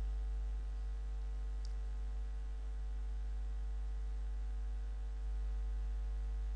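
Steady electrical mains hum with a faint hiss beneath it, unchanging throughout.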